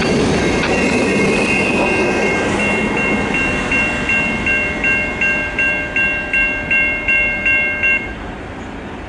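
Railroad grade-crossing warning bell ringing about three strokes a second over the fading rumble and clatter of a freight train's last cars rolling away. The bell stops about eight seconds in, once the train has cleared the crossing.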